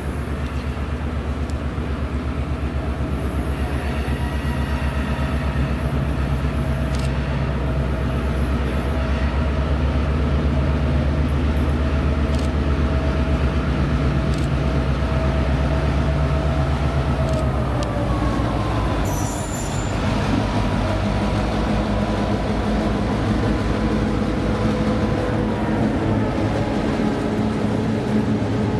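EMD GP38-2 diesel locomotive, its non-turbocharged 16-cylinder two-stroke engine running as it approaches pulling covered hoppers. The engine note drops in pitch as it passes, a little past halfway, and then the hoppers' wheels roll by on the rails.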